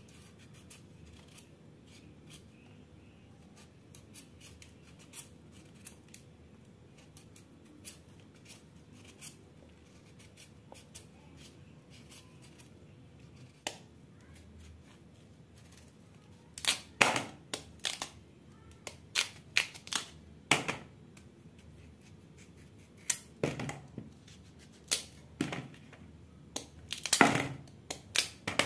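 Kitchen knife peeling and cutting cooked purple sweet potatoes over a plastic bowl: faint scraping and small clicks at first, then from about halfway many sharp knocks and clicks as the potato is cut into chunks and the pieces land in the bowl.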